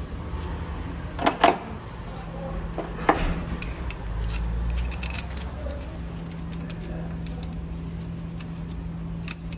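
Metal clinking and knocking as a driveshaft U-joint is fitted to a differential's input yoke and its bolts are worked with a wrench: a couple of louder knocks about a second and three seconds in, then a run of light irregular clicks, over a low steady hum.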